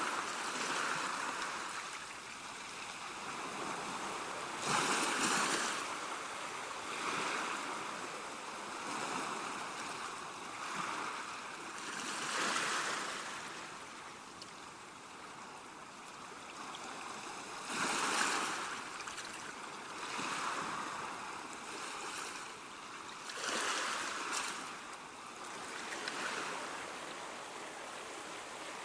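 Ocean waves breaking and washing on a shore, a swelling rush every few seconds, the strongest breakers about 5, 12, 18 and 24 seconds in.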